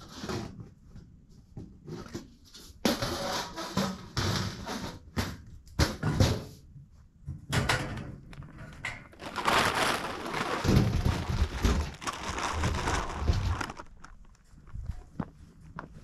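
Feed poured from a bucket and a sack into a sheet-metal game feeder hopper, a rattling hiss in several pours, the longest near the middle lasting about four seconds, with knocks of the containers against the metal.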